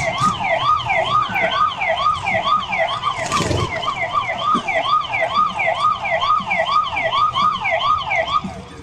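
Siren in fast yelp mode, its pitch sweeping up and down about two and a half times a second and stopping just before the end. A short burst of noise cuts across it about three and a half seconds in.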